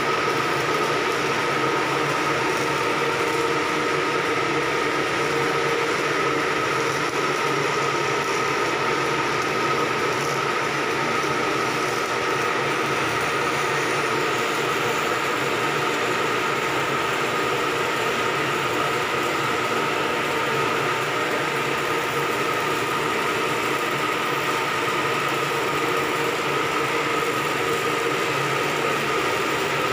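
Shipboard engine-room machinery running: a loud, unchanging drone with a constant high-pitched whine over a lower hum.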